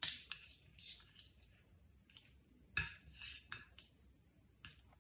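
Slime being stirred with a stick in a glass bowl: faint, irregular sticky clicks and short crackly squelches, the loudest a little under three seconds in.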